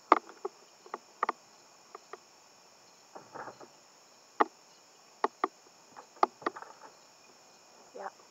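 Two roosters sparring, with sharp irregular smacks as they collide and a couple of brief scuffles in the grass, over a steady high buzz of insects.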